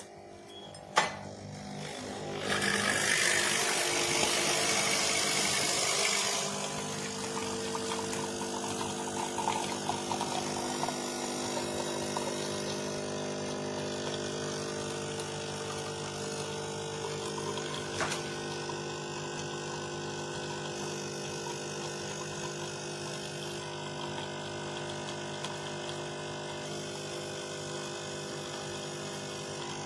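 Nespresso capsule coffee machine brewing: a click about a second in, a few seconds of loud hissing, then the pump running with a steady hum.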